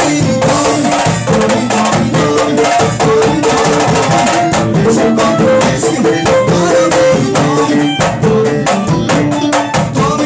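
Band music with busy, fast-repeating hand percussion under sustained melodic notes.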